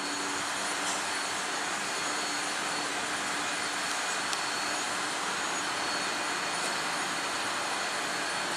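Steady whooshing rush of a train's machinery, with a faint high-pitched whine running through it.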